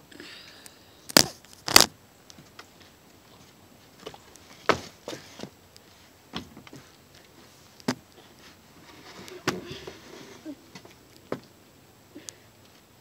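Phone handling noise with the lens covered: a string of irregularly spaced sharp knocks and bumps, the two loudest close together about a second in, with rustling and rubbing between them.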